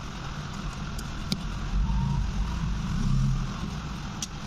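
Steady low background rumble that swells about two seconds in, with a few faint clicks.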